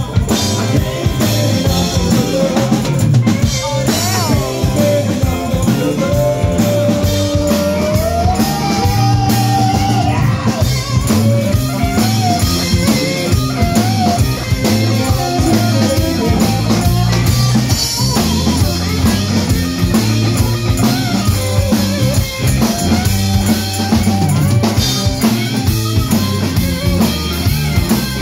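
Live blues-rock band playing: drum kit, bass guitar and electric guitar, with one melodic line that bends and slides in pitch over a steady beat.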